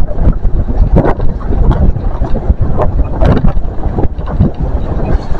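Wind buffeting the camera's microphone: a loud, irregular rumble with scattered sharp knocks.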